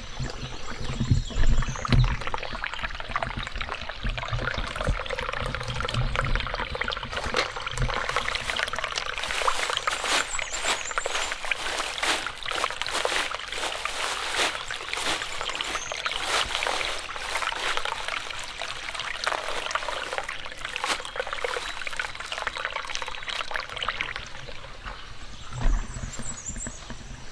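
A thin plastic grocery bag crinkling and rustling as hands dig through it and lift out plastic-wrapped burger patties, over water trickling among rocks. A few dull thumps near the start.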